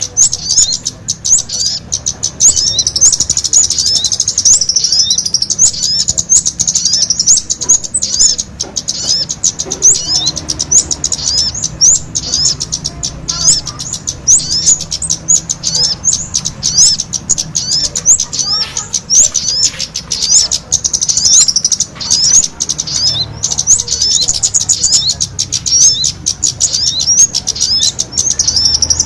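Bird-lure recording of small birds, sogon and kemade calls combined, chirping busily. Quick high chirps follow one another several times a second, with hardly a pause.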